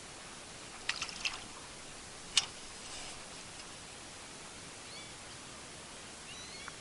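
Steady hiss of light rain, broken by a few sharp clicks about a second in and a single louder click a moment later. Faint short high chirps come near the end.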